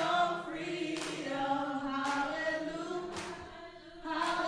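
Background music of a choir singing, in long sustained notes that shift in pitch.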